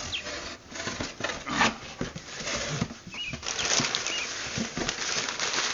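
Crumpled brown packing paper rustling and crinkling, with irregular crackles, as it is pulled out of a cardboard shipping box.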